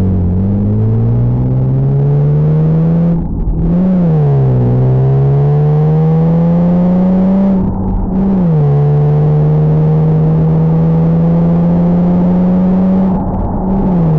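Acura TL's V6 engine under hard acceleration, warmed up, its note climbing steadily through the gears. Three upshifts, each a brief dip in level and a quick drop in pitch, come about three, eight and thirteen seconds in.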